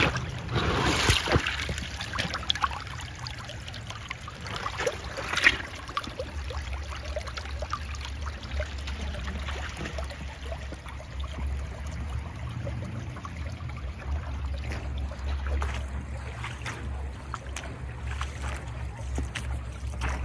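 Spring water trickling and running over gravel at the foot of a retaining wall, with scattered short crackles and a low steady rumble setting in about six seconds in.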